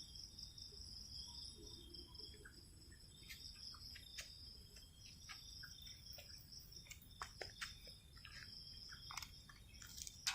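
Crickets chirping in a steady high-pitched trill, with scattered faint ticks.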